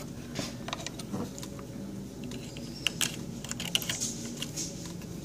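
Scattered light clicks and rattles of a DeWalt folding utility knife being handled and worked at, its blade-release button sunk all the way in so that it can't be pressed.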